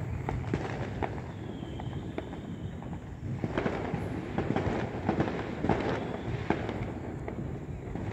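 Fireworks going off: many irregular pops and bangs over a continuous low rumble, with a faint thin whistle about two seconds in.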